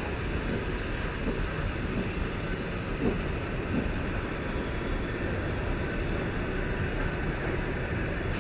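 Passenger coaches of an arriving train rolling past close by: a steady rumble of wheels on rails, with a brief high hiss about a second in.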